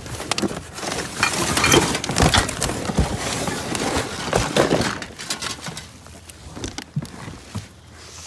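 Scrap electronics and junk clattering as they are rummaged through in a dumpster: a dense run of knocks, clinks and rustling for the first few seconds, then sparser, lighter clicks.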